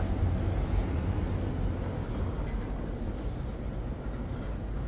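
Steady low rumble with an even hiss of background noise, easing off a little over the seconds.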